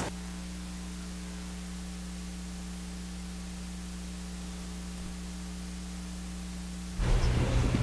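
Steady electrical mains hum with hiss from the audio feed. About seven seconds in, louder room noise abruptly cuts back in.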